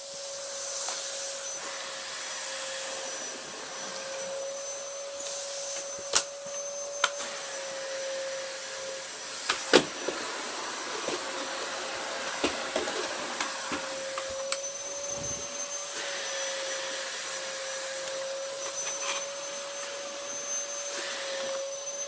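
Dyson upright vacuum cleaner running with a steady motor whine and a high airflow hiss, with a few sharp knocks about six, seven and ten seconds in.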